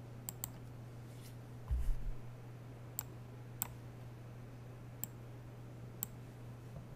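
Computer mouse clicking about six times: a quick pair at the start, then single clicks spaced about a second apart. A dull low thump about two seconds in is the loudest sound, over a steady low electrical hum.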